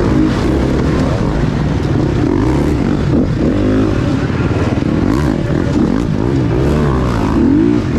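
Gas Gas 350 four-stroke enduro dirt bike engine, heard up close from the bike, revving up and dropping back again and again as the rider throttles through rocks, logs and tyres.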